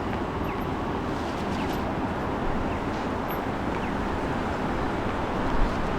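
Steady din of a busy city transit hub, with traffic noise and faint clicks, and a brief thump near the end.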